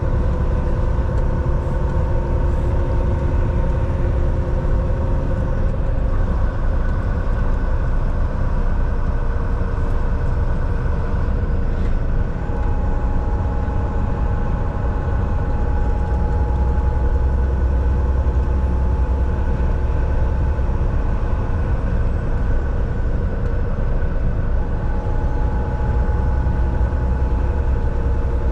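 Volvo semi truck driving on the road: engine drone and road noise making a steady low rumble, with a few steady tones above it.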